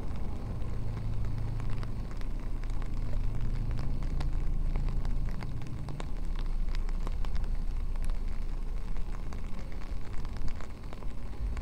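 Rain falling, with many single drops ticking sharply close to the microphone over a steady hiss and a low rumble. A low engine hum runs under it for the first half or so, then fades.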